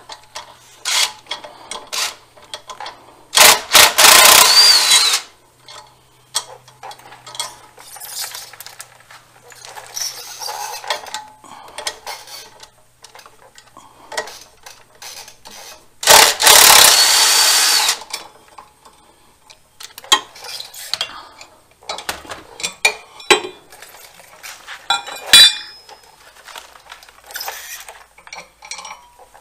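A power drill runs twice in bursts of about two seconds, driving the clutch bracket's bolts back in on a zero-turn mower. Light metallic clinks of bolts and tools come in between.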